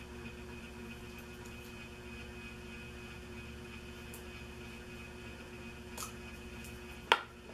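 Small handling sounds of a new lipstick being unsealed, a few light ticks over a steady faint hum, then one sharp click about seven seconds in as the lipstick case is pulled open.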